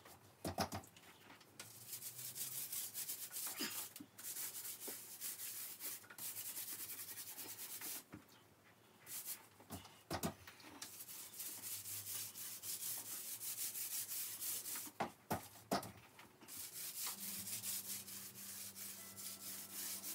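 Small paint roller rolling emulsion onto a wall, a repeated sticky swishing of back-and-forth strokes with a few short pauses while the roller is reloaded or moved.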